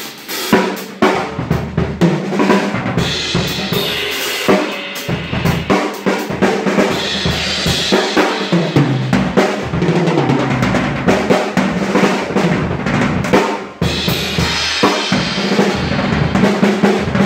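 Kyre Ares acoustic drum kit played with sticks: snare, toms and bass drum under crashes on Nebulae cymbals, including a crash with holes cut in it, whose wash rings over the strokes. The playing breaks off briefly about three-quarters of the way through, then picks up again.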